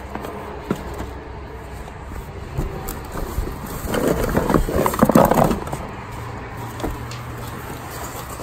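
Hands rummaging through a cardboard box of small boxed parts: cardboard scraping and rustling with scattered light clicks. It is busiest in a burst about halfway through.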